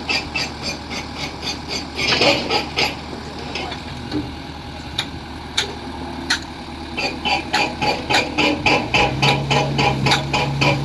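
Background music with a quick ticking beat, about four ticks a second, over a steady low machine hum, likely from a diesel-driven concrete pump. The beat thins out in the middle, and a steadier, lower tone joins about nine seconds in.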